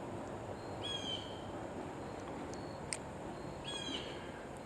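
A bird calling twice, about two and a half seconds apart: short calls that drop quickly in pitch and then hold steady, over a steady outdoor background hiss. A single sharp click comes shortly before the second call.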